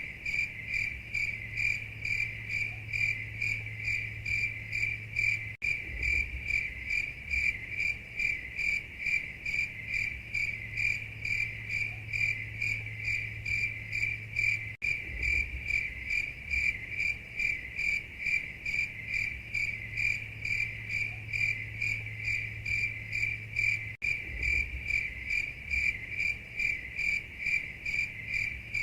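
Night-time cricket chorus sound effect: steady, even chirping at about four pulses a second, repeating as a loop with brief dropouts at the seams about every nine seconds, over a low steady hum.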